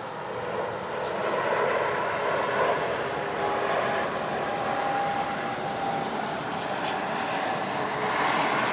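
Virgin Atlantic Boeing 747-400 on final approach passing low overhead, its four Rolls-Royce RB211 turbofans making a steady jet rumble that swells about a second in, with a faint whine in the middle.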